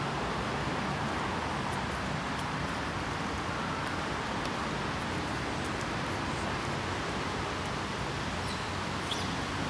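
Steady outdoor background noise, an even hiss with no clear single source, with a few faint clicks near the end.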